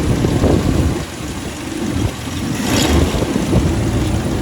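AMC 287 V8 running warm, its exhaust going through a single Super 44 muffler. The sound dips about a second in and swells back up by about three seconds in.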